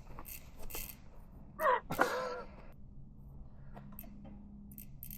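A brief wordless vocal sound, a drawn-out exclamation or groan, about two seconds in, with a few faint clicks before and after it.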